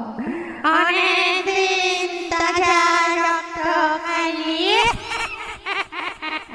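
Eerie ghost-wail sound effect: several wailing, singing-like voices hold long notes with a heavy wavering vibrato. More voices join about half a second in, and the pitch slides up around five seconds in.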